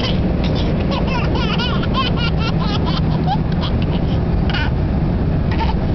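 Baby laughing in a quick run of short bursts, then twice more near the end, over the steady low drone of an airliner's cabin.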